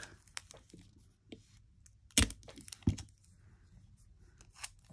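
Hands handling a clear plastic sheet of sticky tape strips: light crinkling and tape peeling, with small ticks throughout and two sharp clicks about two and three seconds in.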